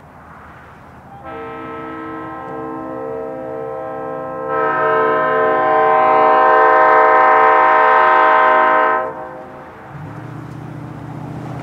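Diesel locomotive air horn, an EMD SD40-3's multi-tone chord, sounding one long blast as the train approaches a grade crossing. It starts about a second in, gets louder partway through and cuts off sharply. Near the end the diesel engine comes up underneath.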